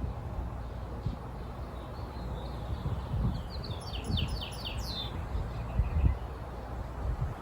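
A bird calls once, about three seconds in: a quick run of five or six downward-sweeping chirps. Under it runs a steady low rumble with a few dull thumps.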